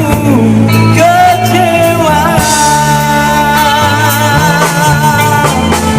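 A male voice singing a Malay ballad over a band backing with bass and guitar, holding one long note through the middle of the line.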